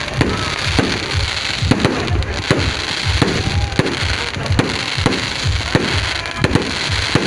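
Fireworks bursting in quick succession: repeated sharp bangs over a continuous crackling rumble.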